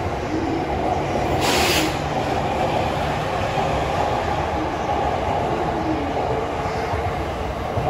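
JR East electric commuter train rolling along the station platform: a steady rumble of wheels on rail and running gear, with a brief hiss about a second and a half in.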